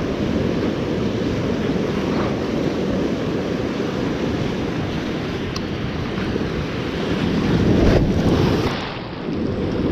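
Sea waves surging and breaking against a rocky seawall, with wind buffeting the microphone. A wave swells louder about eight seconds in, then falls away.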